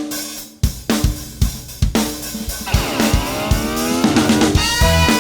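Intro music: a run of drum hits with cymbals, then a sweeping glide in pitch, and held melodic tones come in near the end.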